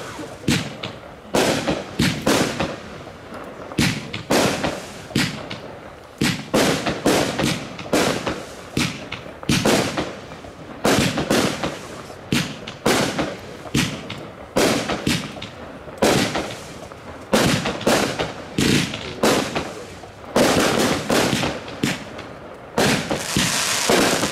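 Golden Black Hole compound firework battery firing: a steady series of shots, about one or two a second, as tubes launch shells that burst in the sky. Near the end a dense hissing crackle sets in.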